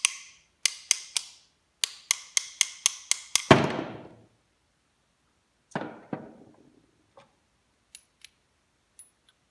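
Rapid light metal taps, about four a second: three, then a run of seven. Then one heavier knock about three and a half seconds in, which rings on briefly. Two lighter clunks come near six seconds and a few faint ticks after. This is tapping to drive a fried bearing and chuck apart while stripping a Porter Cable 7518 router.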